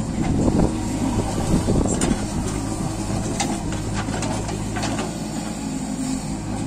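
Diesel engines of a JCB backhoe loader and a Swaraj 744 FE tractor running steadily as the backhoe swings its arm, with a few short knocks and clanks as the bucket digs earth and dumps it into the trolley.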